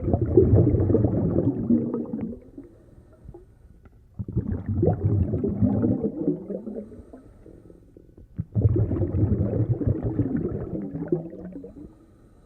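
Muffled churning of whitewater rapids, coming in three surges about four seconds apart with quieter gaps between them.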